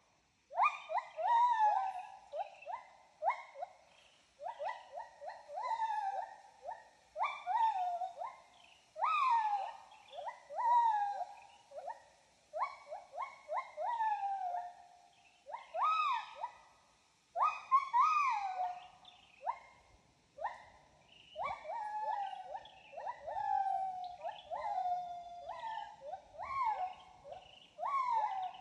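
An animal calling over and over: loud whistled notes that mostly slide down in pitch, one every second or two.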